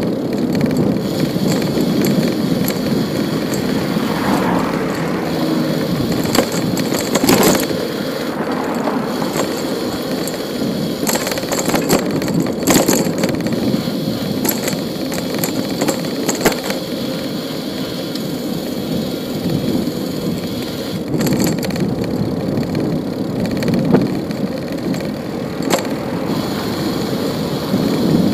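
Bicycle riding on a city street: a steady rumble of tyres on the road and passing traffic, with scattered rattles and clicks from the bike every few seconds.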